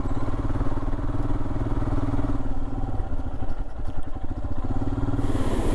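Royal Enfield Himalayan's 411 cc single-cylinder engine running steadily under way, a beat of firing pulses under a low engine note. The note eases off about halfway through and picks up again near the end.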